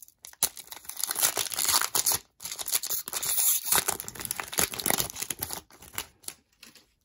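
Foil wrapper of a 2020-21 Upper Deck Series One hockey card pack being torn open and crinkled by hand: a dense crackle of foil that pauses briefly about two seconds in and thins out near the end.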